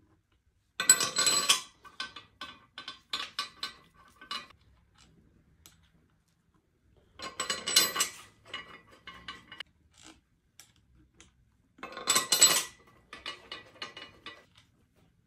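Three bouts of metallic clinking, each a sharp ringing clatter followed by a run of lighter clicks: steel bolts and a ratchet being handled on the aluminium cylinder head of a 4.4 V8 diesel engine.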